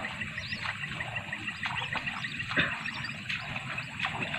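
Wild whistling ducks calling: scattered short, high whistles that bend up and down, over a steady fast chirping.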